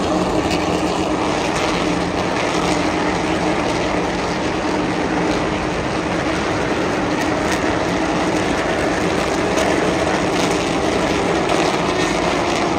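Turismo Carretera race car engines running together in a steady, loud drone.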